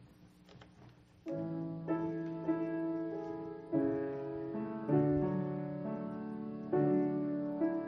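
Piano playing the slow introduction to a hymn, coming in about a second in with held chords that change every second or so.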